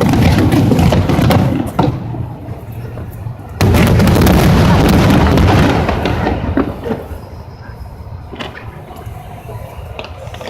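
Fireworks finale barrage: a dense, rumbling run of booming aerial shells that eases off about a second and a half in, then a second loud volley that starts suddenly about three and a half seconds in and dies down after about six seconds, leaving a few scattered bangs.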